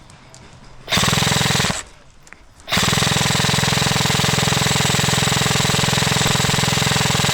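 Airsoft gun firing full-auto as suppressive fire: a short burst about a second in, then a long unbroken burst from just under three seconds in.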